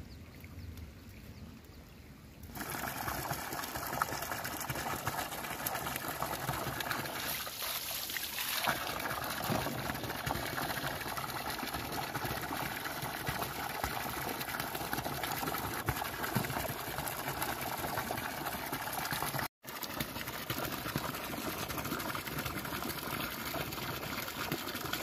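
Water pouring from a pipe outlet and splashing onto wet ground in a steady rushing stream. It starts about two and a half seconds in after a quieter stretch, and breaks off for an instant about three-quarters of the way through.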